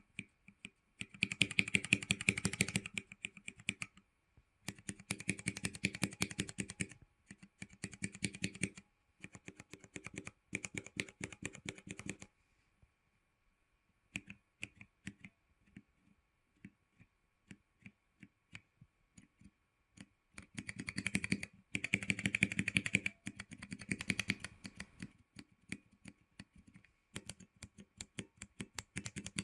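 Cherry MX mechanical key switches with keycaps fitted and no O-rings, pressed one switch after another on a nine-switch tester: bursts of rapid clacking key presses, with stretches of slower single presses in between.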